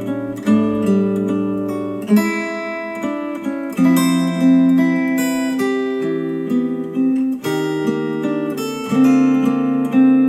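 Acoustic guitar music with strummed chords that change every second or two, played back through ELAC Debut Reference DBR-62 bookshelf speakers driven by a Rotel A12 integrated amplifier.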